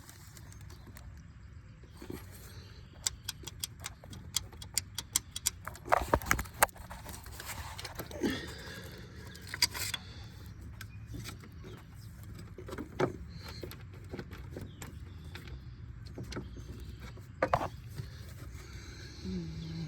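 Irregular metallic clicks and clinks of metal parts being handled, thickest in the first half, over a low steady hum.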